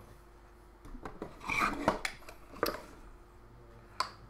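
Small hard objects clinking, clicking and rubbing against each other, as when tools are rummaged through, with a few sharp clicks between about one and three seconds in and one more near the end.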